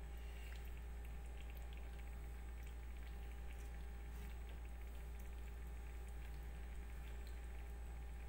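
Sauce simmering in a pot on the stove: faint bubbling and light crackle with scattered soft ticks, over a steady low hum.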